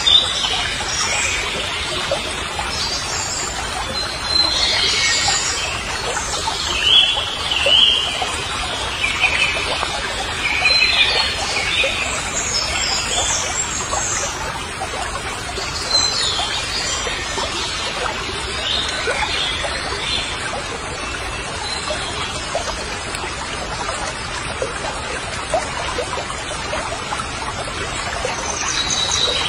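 Birds chirping and calling in short, irregular phrases over a steady background hiss.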